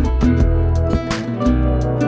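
Instrumental background music led by guitar, with held notes and a regular beat.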